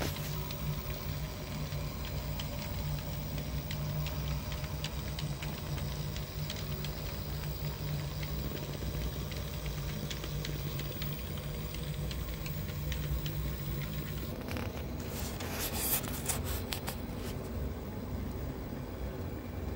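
HO-scale brass PFM three-truck Climax model locomotive running along the track: its motor and gearing hum steadily, with light wheel clicking over the rails. About fourteen seconds in the hum stops, and a few brief hissing noises follow.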